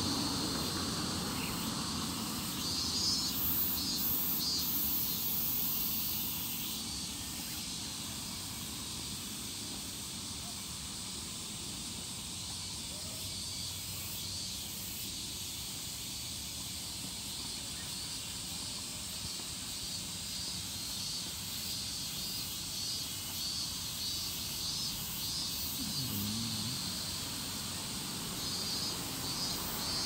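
Cicadas calling: a steady high-pitched hiss, with pulsing buzzes that come up near the start and again near the end.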